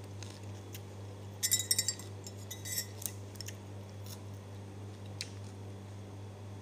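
Tableware clinking against ceramic: a quick run of ringing clinks about a second and a half in and a few more near three seconds, then single light clicks, over a steady low hum.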